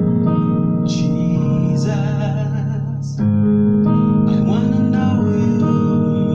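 Electronic keyboard playing slow, sustained chords, with a man singing a gospel worship song over it; the chord changes about three seconds in.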